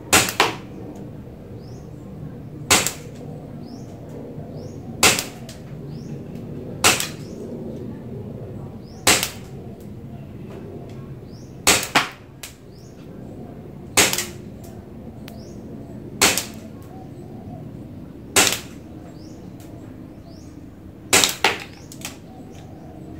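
Double Bell Vorpal Bunny (aDB796-1) gas blowback BB pistol firing about fourteen single shots, each a sharp crack. They come roughly one every two seconds, with a few quick pairs and three shots close together near the end.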